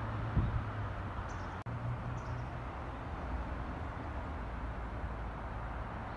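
Steady low hum and rumble of outdoor ambience, with two faint high chirps about a second and two seconds in.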